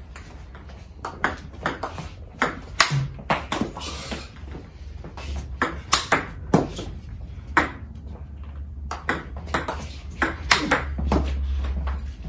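Table tennis rally: a plastic ball clicking sharply off rackets, one faced with XIOM Omega VII China rubber, and bouncing on the table, about two hits a second. The clicks stop about a second before the end.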